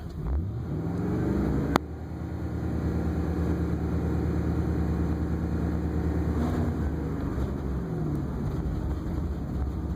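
2002 Ford Super Duty's 5.4-litre V8 running as the truck drives: the engine note rises over the first couple of seconds, holds steady, then drops away about seven seconds in. One sharp click comes near the two-second mark.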